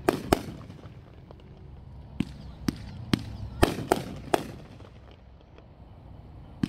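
Aerial fireworks bursting in the sky: sharp bangs, two just after the start and a quick run of about six from two to four and a half seconds in, some with a short rumbling echo, then a quieter spell before another bang near the end.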